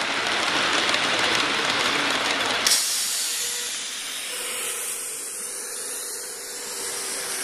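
A 45 mm gauge live-steam locomotive hissing steam as it runs past, with a train of cars rolling on the track. About three seconds in, the low noise drops away suddenly, leaving a high hiss.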